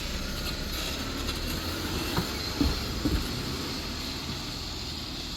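Train running with a steady low rumble, a few clanks about two to three seconds in.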